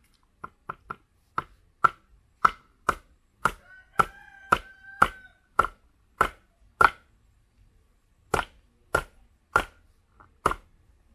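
Machete chopping nipa palm fruit segments on a wooden chopping block: a string of sharp knocking strikes about two a second. It pauses for about a second and a half after roughly seven seconds, then resumes.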